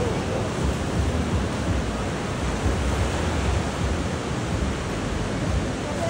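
Ocean surf breaking and washing up the sand, a steady rush of noise, with wind buffeting the microphone in low rumbles.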